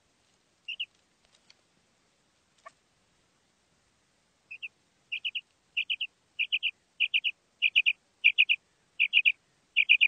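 Common quail calling: a short double note just before a second in, then from about four and a half seconds a regular run of clipped, high note-groups of two or three notes each, repeated about every two-thirds of a second and growing louder.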